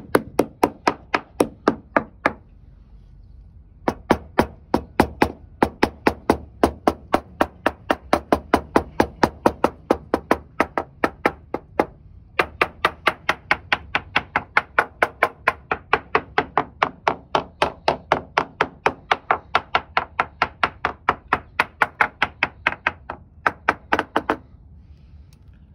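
Ball-peen hammer tapping steadily on a Donzi boat's fiberglass deck, two to three light, sharp strikes a second. The tapping breaks off briefly twice and stops shortly before the end.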